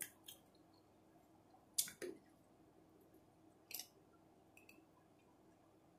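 A person drinking from a glass: a few short, soft sips and mouth clicks spaced a second or two apart, in near silence.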